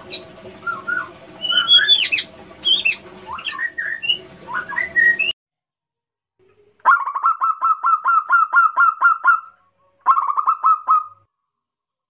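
High chirps and gliding whistles for the first five seconds, then a zebra dove (perkutut) calling: a fast run of short, evenly repeated cooing notes lasting about three seconds, and after a brief pause a shorter run of the same notes.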